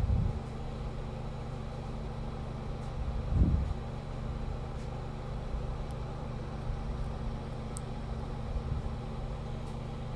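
Heartbeat and breathing sounds recorded up close: a steady low rumble, with a louder swell about three and a half seconds in and a smaller one near the end.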